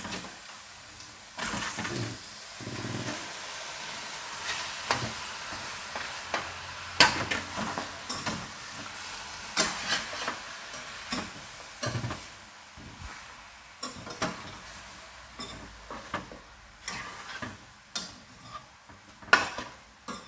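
Raw pork leg pieces sizzling in a hot stainless steel pot as they are dry-fried to draw out their water, with a metal ladle clanking and scraping against the pot as they are stirred. The sizzle starts about a second and a half in, as the pork goes in.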